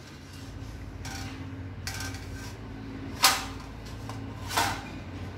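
Hot metal lid, used as a pizza pan, knocking against a wire oven rack as it is gripped and lifted with a towel: two sharp clanks about a second and a half apart, after a couple of lighter knocks.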